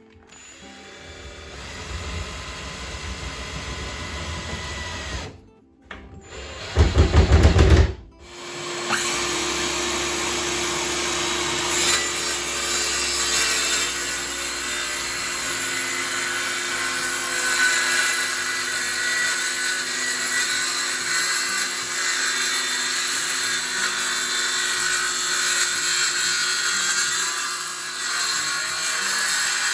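Power drill running in spells, loudest in a short pulsing burst about seven seconds in, with background music underneath.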